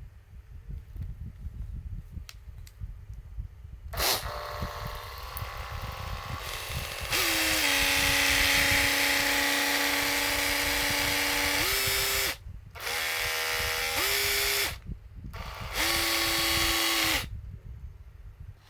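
Makita HP440D cordless hammer driver-drill running free in bursts, with the abnormal noise that the used tool is being checked for. It starts about four seconds in, picks up speed and gets louder a few seconds later and runs steadily, then gives two shorter bursts before stopping.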